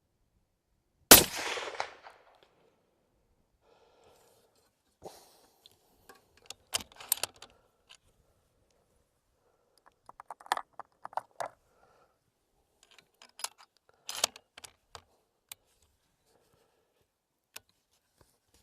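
A single shot from a Sako Finnlight .270 Winchester bolt-action rifle about a second in, with a short ringing tail, fired as one shot of the barrel break-in. It is followed by scattered clicks and light knocks of handling the rifle.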